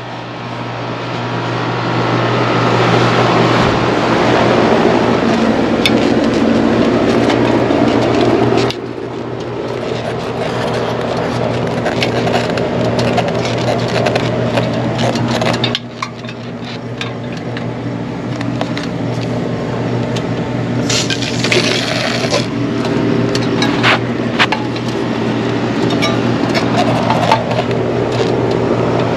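Steady low machine hum, with knocks and scrapes from an aluminium extension ladder being handled and climbed. About 21 seconds in, a can of wasp and hornet aerosol spray hisses for a second or so as it is sprayed at bugs.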